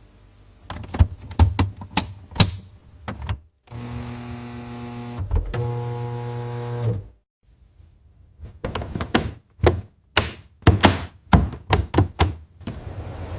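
Factory machinery: clusters of sharp mechanical clacks and knocks, with a steady machine hum for about three seconds in the middle.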